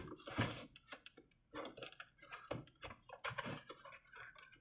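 Faint, scattered clicks, taps and short scratchy rustles of fingers handling a small plastic miniature kitchen and picking at the tape that holds its cabinet doors shut.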